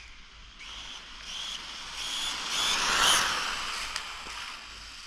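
Rlaarlo Croboll 1/14-scale RC car with a brushless motor on a speed pass: a high motor and drivetrain whine grows louder as the car comes closer, is loudest about three seconds in, then fades as it moves away.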